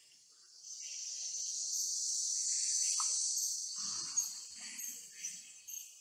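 Insects droning in a steady high-pitched chorus, swelling about a second in and easing off near the end, with a few short high chirps over it.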